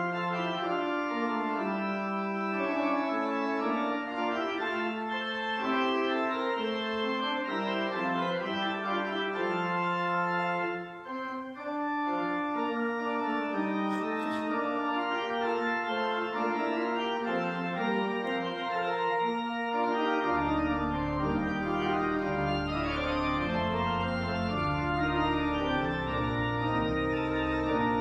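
Organ music: slow, held chords that change every second or so, with a brief break near the middle. A deep bass line joins about two-thirds of the way through.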